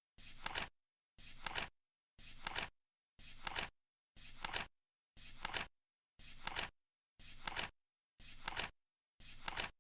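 Flip clock's seconds card flipping once a second: each flip is a short rustle that ends in a sharp snap, with dead silence between flips.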